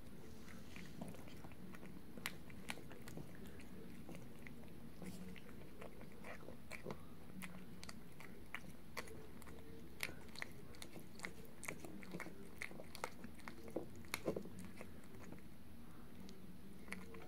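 A cat chewing and biting soft pieces of meat from a small dish, close up: irregular small clicks and smacks over a quiet background.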